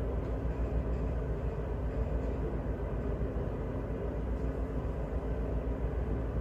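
Tugboat's diesel engines running, a steady deep drone heard inside the wheelhouse.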